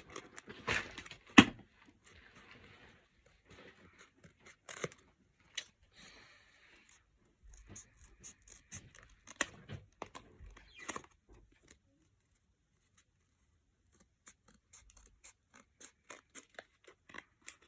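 Scissors cutting cardboard: irregular snips and crunches, the sharpest about a second and a half in, with a pause of a couple of seconds late on.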